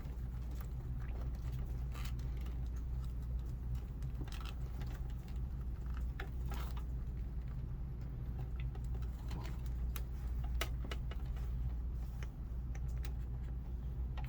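Scattered light clicks and clinks of battery leads and connectors being handled and fitted on a mobility scooter, over a steady low hum.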